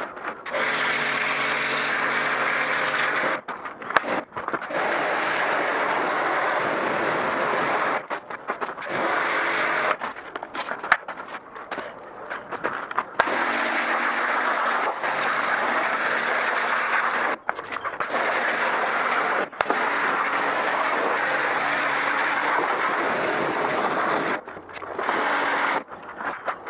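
Pressure washer running, its pump motor humming under the hiss of the water jet blasting dirt off a bicycle's wheels and frame. The spray cuts out briefly several times between long bursts.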